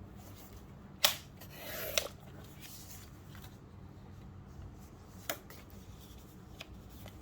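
Paper and file-folder cardstock handled on a craft table: a sharp tap about a second in, a short sliding rustle ending in a click, and another tap a few seconds later.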